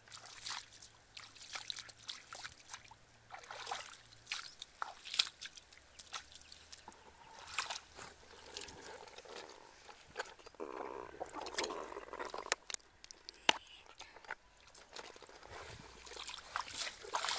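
Shallow muddy water splashing and sloshing irregularly as hands and bare feet move through it.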